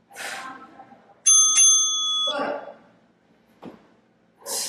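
Electronic interval-timer chime, a bright ringing tone struck twice in quick succession and held for about a second, signalling the start of a work interval. Short, sharp breaths come at the start and near the end as the exercise begins.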